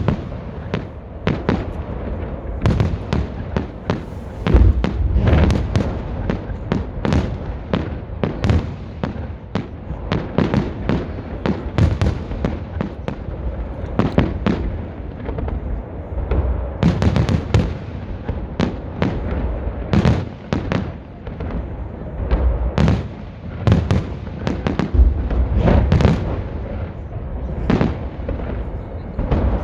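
Festive fireworks salute: firework shells bursting in quick succession, sharp bangs and crackles several a second, with heavier deep booms now and then.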